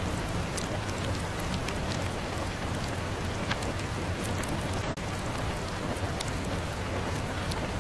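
Steady rain ambience with scattered small sharp crackles, as from a fireplace mixed into the rain. The sound drops out for an instant about five seconds in.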